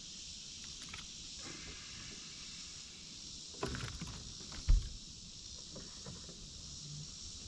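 Steady high buzz of insects, with a single dull thump a little past halfway through.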